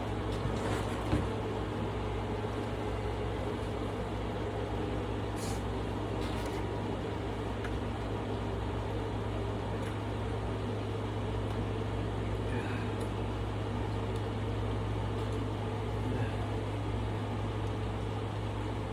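Dell PowerEdge rack server's cooling fans running steadily: a constant low hum under an even fan hiss.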